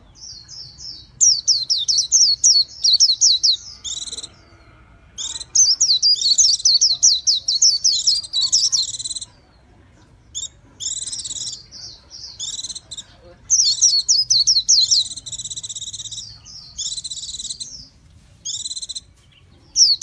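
Caged white-eye singing: several bursts of rapid, high-pitched twittering song, separated by short pauses.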